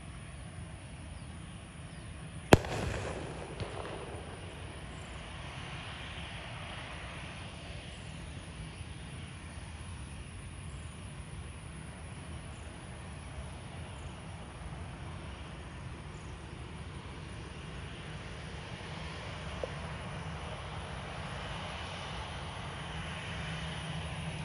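Distant Air India narrow-body jet airliner's engines running as it taxis onto the runway, a low rumble with a hiss that grows a little louder near the end. About two and a half seconds in, one sharp bang like a firecracker, with a rolling echo.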